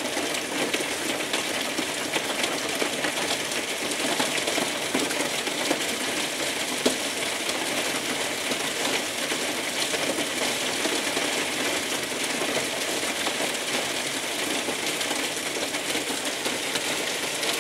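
Hail mixed with rain drumming steadily on a corrugated roof and the garden, a dense clatter of countless small impacts, with one sharper hit about seven seconds in.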